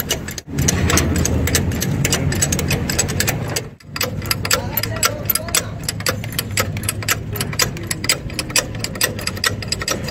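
Fast metallic clicking and tapping of hand tools on a truck axle and hydraulic bottle jack, over a steady low engine hum.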